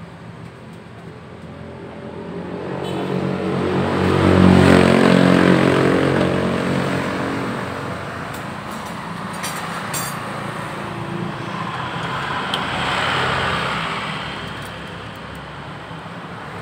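Motor vehicle engine running, its sound swelling to a peak about five seconds in and fading away, then swelling again more weakly near the end, with a few light clicks in between.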